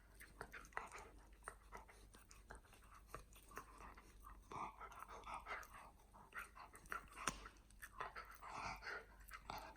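A dog chewing, with many small crunching clicks of teeth on something hard.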